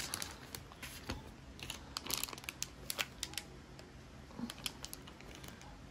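Faint, scattered crinkles and clicks of a plastic Crush Petz blind-bag package being handled and opened as the squishy toys are pulled out.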